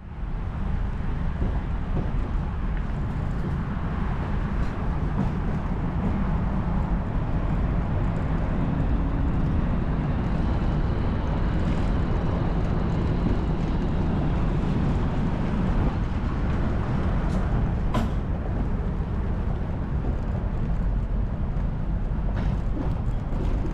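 Steady low rumble of a boat on its trailer being towed over rough pavement, heard from the boat's deck, with a single sharp clank about three-quarters of the way through.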